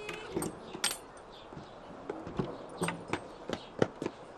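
A boy's footsteps on a stony dirt path: irregular knocking steps, a few a second, coming faster near the end.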